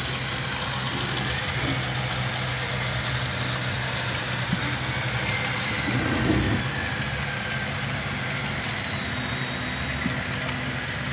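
HO scale model diesel locomotives rolling past, their sound decoders playing a steady diesel engine rumble with a faint high whine gliding over it.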